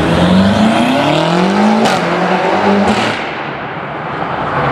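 BMW M8 Competition's twin-turbo V8 accelerating hard, its note rising, then two quick upshifts about a second apart, each with a short crack. The engine sound then drops away as the car pulls off down the street.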